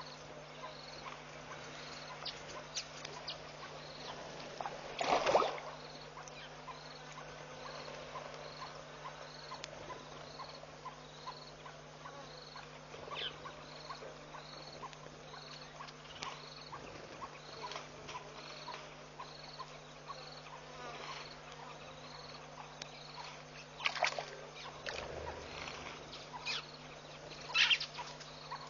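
Outdoor wildlife ambience: a high chirp repeating steadily about every 0.7 seconds over a constant low hum, with a few sharp knocks, the loudest about five seconds in and two more near the end.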